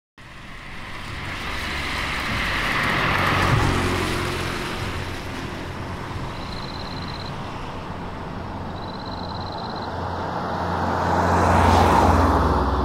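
Road traffic: two cars pass in turn, each a swell of tyre and engine noise that rises and fades, the first peaking about three and a half seconds in and the second near the end, over a steady low hum.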